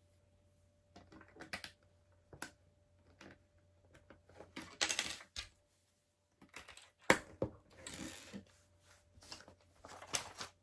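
Plastic LEGO bricks clicking and clattering: pieces being picked through and pressed together in irregular taps, with short rattling bursts and one sharper click about seven seconds in.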